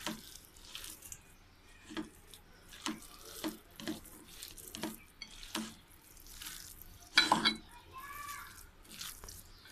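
A hand squishing and kneading wet mashed cauliflower with flour, onion and spices in a ceramic bowl, mixing a cauliflower chop batter. It makes a string of short, irregular wet squelches, with a louder one about seven seconds in.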